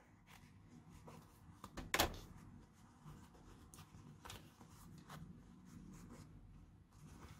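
Faint handling sounds of cotton fabric and elastic cord being worked through a mask's side channel: soft rustles and small clicks, with one sharper knock about two seconds in.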